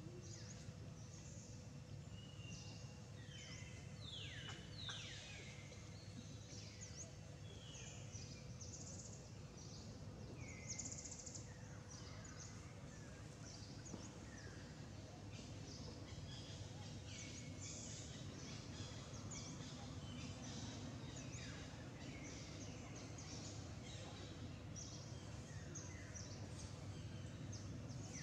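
Outdoor ambience: birds calling with many short, high chirps that sweep down in pitch, scattered irregularly, over a steady low rumble of background noise.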